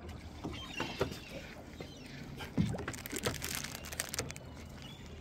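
Seabirds calling in scattered short cries over the water.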